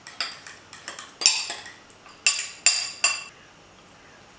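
Metal spoon stirring banana-and-egg batter in a ceramic bowl: quick light clinks, then four louder ringing clinks of the spoon against the bowl between about one and three seconds in.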